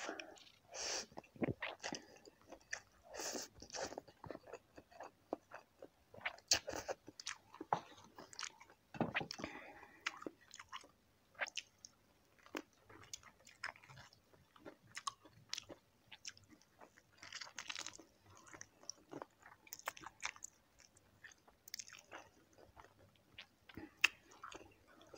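Close-up eating sounds: noodles taken into the mouth at the start, then biting and chewing crispy fried chicken feet, with irregular crunches and wet mouth noises.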